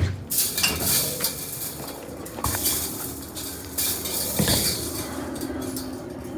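Irregular light clattering and clinking of small hard objects, with rustling, handled at close range.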